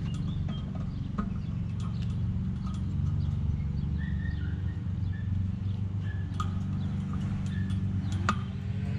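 Small birds chirping on and off over a steady low hum, with a few sharp clicks.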